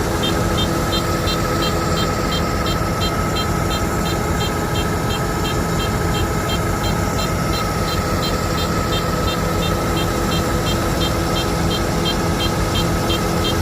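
Combine harvester engine and threshing machinery running steadily, with a high, even pipping about three times a second over it.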